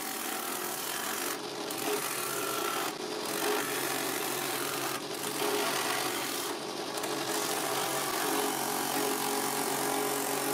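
Drill press spinning a homemade sandpaper drum that sands the edge of a curved wooden workpiece: a steady motor hum under the rasp of abrasive on wood. The rasp thins out briefly about four times as the piece is shifted against the drum.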